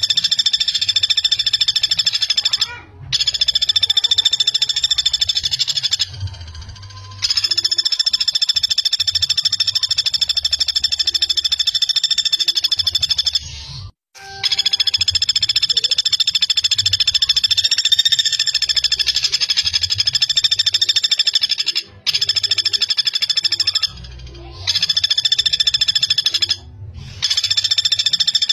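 Pelatuk bawang (common flameback woodpecker) calling a fast, tightly packed rattling trill. It comes in long runs of several seconds each, with short breaks near 3, 6 to 7, 14, 22, 24 and 27 seconds in.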